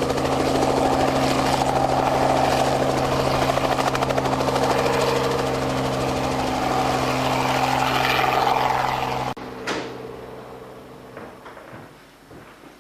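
Helicopter running steadily, engine hum with a rapid rotor beat, which cuts off abruptly about nine seconds in and leaves a much quieter room.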